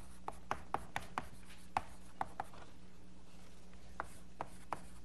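Chalk writing on a blackboard: irregular sharp taps and short scrapes a few times a second, with a pause of about a second past the middle, over a steady low hum.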